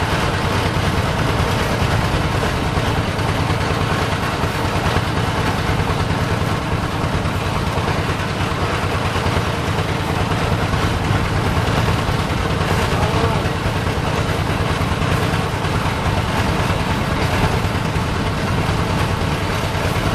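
An engine running steadily at an even speed, a low continuous throb with no change in pace.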